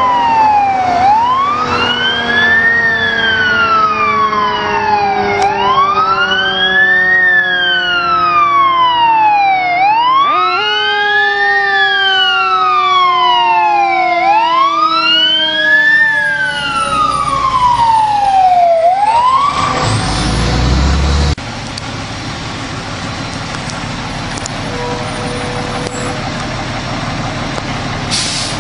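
Fire truck siren on wail, rising and falling about every four and a half seconds, with a second, lower tone sliding slowly downward. The siren stops about 19 seconds in, followed by a brief low rumble, then steady truck engine noise.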